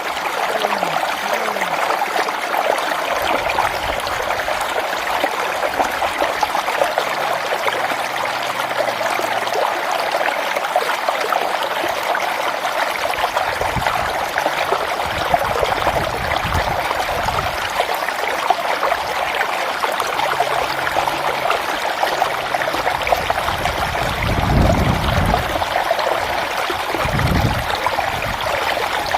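A hill stream running steadily, an even rush and splash of water flowing. A few low rumbles come and go about halfway through and near the end.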